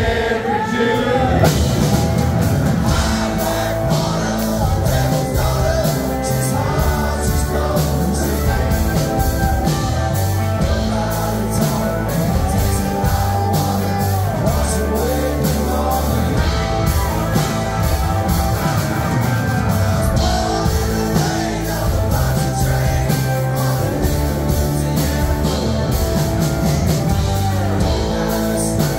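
Live rock band playing with electric guitars, bass guitar, drums and keyboard, and singing over it.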